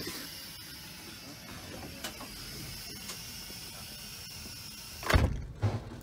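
Steady hiss of a Thalys passenger car's interior, with a couple of faint clicks, then two heavy thumps about five seconds in.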